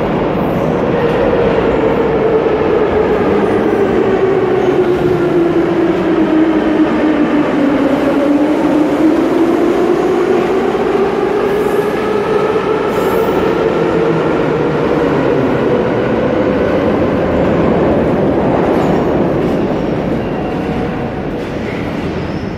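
Moscow metro trains of the 81-717/714 type running through the platform, with the rumble of wheels on rails and the traction-motor whine. The whine falls steadily in pitch for about eight seconds, then rises again, as one train pulls out and the next runs in.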